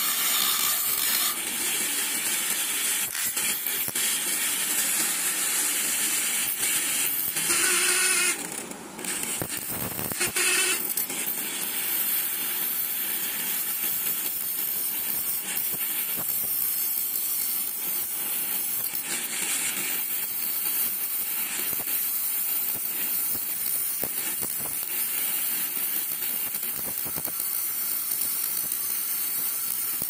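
Homemade mini angle grinder, a 775 DC motor with a small cutting disc, running and cutting into thin material: first a thin sheet, then a thin metal rod. It makes a steady high hiss that drops away briefly about nine seconds in.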